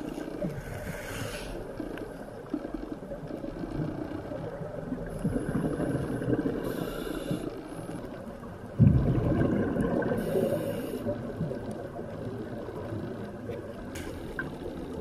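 Scuba diver breathing through a regulator underwater: a few hissing inhalations and rumbling, gurgling bursts of exhaled bubbles, the loudest burst about nine seconds in.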